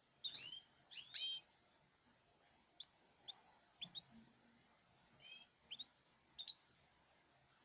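Caged birds giving short chirping calls, a couple of loud ones in the first second and a half, then scattered single chirps with pauses between.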